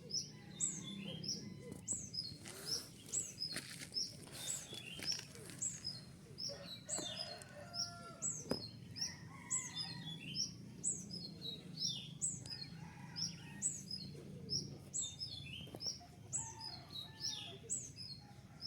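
Male brown-throated sunbird (konin) giving sharp, high chirps over and over, about two a second, each one dropping in pitch. A steady low hum runs underneath.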